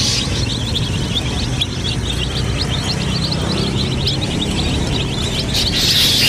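A flock of domestic chicks peeping continuously: many short, high cheeps overlapping several times a second, over a low steady background hum.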